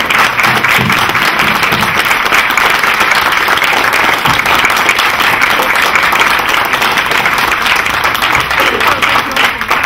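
Loud, sustained applause from an audience, steady throughout, with the panelists on stage clapping along.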